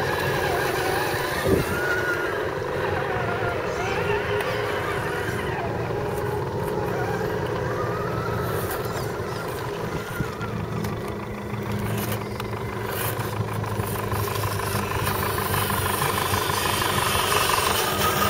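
Electric scale RC crawler trucks driving slowly over loose gravel: a steady motor-and-gear whine with small clicks of stones. A lower steady hum joins about two-thirds of the way through.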